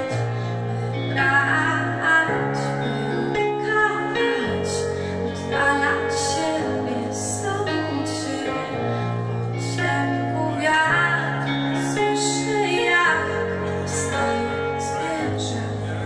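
Live band playing: a woman singing over keyboard, electric guitar, sustained low bass notes and drums with regular cymbal strokes.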